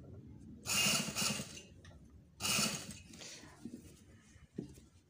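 Industrial lockstitch sewing machine running in two short bursts of stitching, the first about a second long and the second shorter, as a band collar is sewn onto a neckline. A light click follows near the end.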